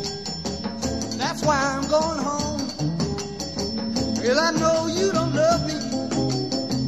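Electric blues band playing. An amplified blues harmonica plays wailing fills that bend up in pitch about one, four and near seven seconds in, between the sung lines.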